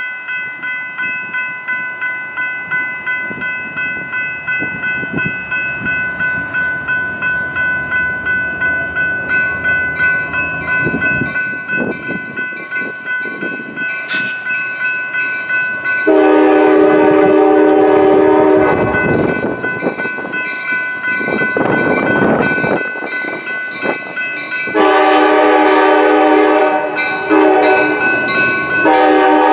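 Railroad grade-crossing bell ringing in a steady rapid rhythm as the crossing activates. About halfway through, the approaching Norfolk Southern EMD GP60 locomotive sounds its air horn in several long loud blasts for the crossing, over the rumble of the oncoming train.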